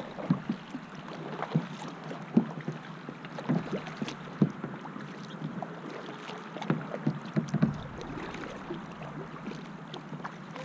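Kayak being paddled: small, irregular splashes and drips of water from the paddle and around the hull, with a steady wash of moving water.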